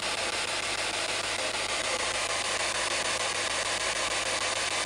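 Spirit box, a handheld radio that rapidly scans through radio frequencies, giving out a steady hiss of radio static.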